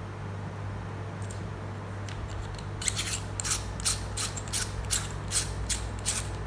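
Quick plastic clicks and scrapes, about three or four a second from about three seconds in, as a battery is pressed and worked into a lavalier microphone's small battery compartment. A steady fan hum runs underneath.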